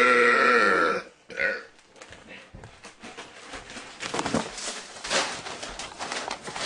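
A long, loud burp that ends about a second in, followed by a short fainter sound; after that only quieter scattered clicks and rustling.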